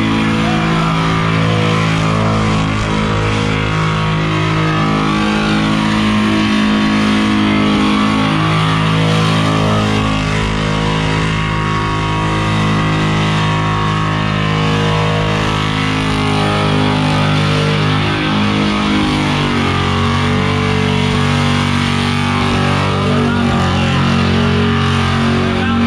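1970 Chevrolet El Camino doing a long burnout, its engine held at high revs while the rear tyres spin and scream on the pavement. The engine note holds steady, then shifts pitch about twenty seconds in.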